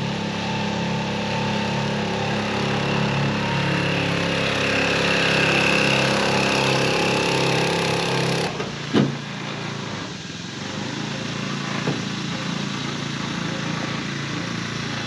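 A small 4 hp four-stroke outboard motor running steadily under throttle. About eight and a half seconds in it is throttled back, with a brief knock, and it runs on quieter and rougher at low speed.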